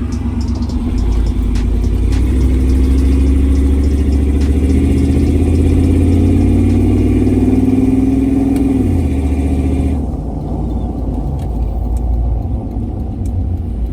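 Blazer truck's engine pulling under acceleration, its pitch climbing steadily for several seconds. It falls suddenly about nine seconds in, and the engine then runs lower and quieter.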